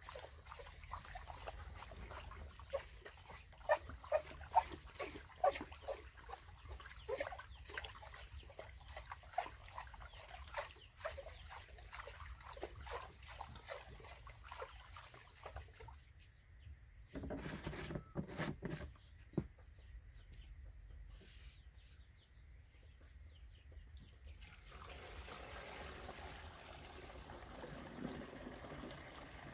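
A stick scraping and knocking against a metal basin in quick repeated strokes as white powder is stirred into water, with a few dull thumps midway. Near the end the milky mixture pours into a plastic backpack sprayer tank.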